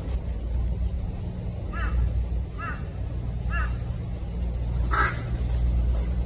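Four short, arched animal calls, spaced about a second apart, over a steady low rumble.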